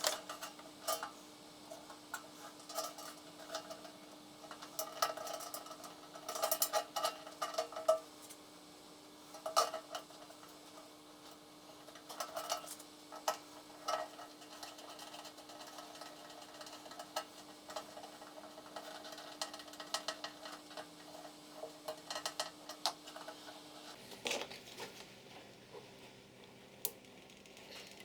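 Irregular light clinks and taps of small hard objects being handled, over a steady hum that changes pitch about 24 seconds in.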